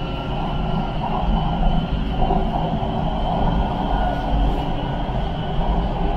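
Siemens Inspiro metro train running, heard from inside the carriage: a steady low rumble from the running gear with faint, steady whining tones over it.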